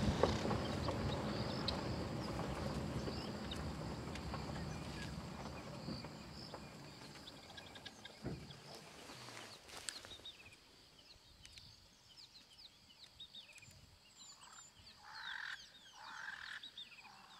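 Birds calling in the bush, with many short chirps in the second half and a few harsher calls near the end, over a steady high hum. A low rumble, the safari vehicle driving on the dirt track, is loud at the start and fades away over the first several seconds.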